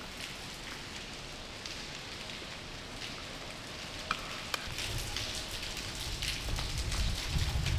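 Footsteps crunching over rubble and grit on a concrete floor, over a steady hiss. The crunching and a low rumble build up from about halfway in, after two sharp clicks.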